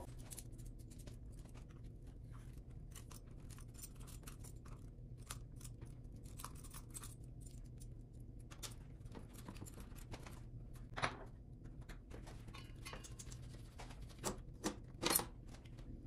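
Scattered light clicks and clinks of a folding hex key set and bike parts being handled while stem and fork bolts are undone to take the fork off a mountain e-bike. A few sharper clicks come about two-thirds of the way in and near the end, over a steady low room hum.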